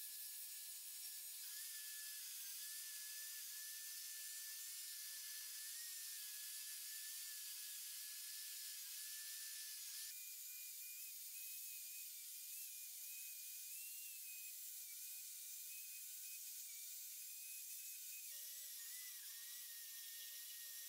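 Small angle grinder running with a steady high whine while grinding the steel of a blacksmith's leg vise. The pitch of the whine shifts abruptly about ten seconds in and again near the end.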